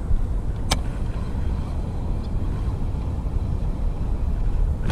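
Wind rumbling on the camera's microphone, with one sharp click a little under a second in.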